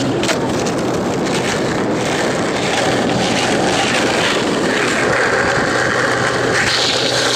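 Skateboard wheels rolling over rough asphalt: a steady, loud rumbling noise with a low hum and a few faint clicks.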